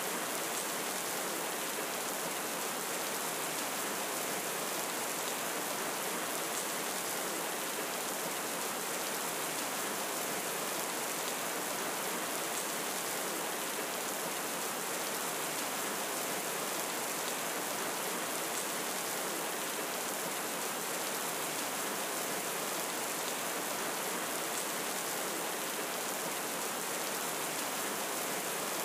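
Steady rain falling, an even hiss that holds level throughout, with no thunder.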